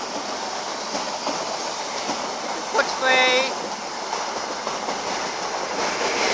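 Mark 3 coaches of an InterCity 125 high-speed train passing at speed: a steady rushing noise of wheels on rails. About three seconds in, a brief held note of about half a second sounds over it.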